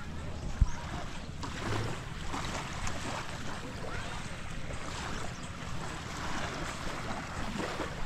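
Beach ambience: small waves washing ashore, with wind noise on the microphone. A single low thump about half a second in.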